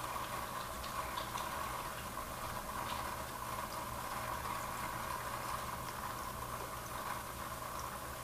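Aquarium water bubbling and trickling steadily, with a low constant hum underneath and faint scattered ticks.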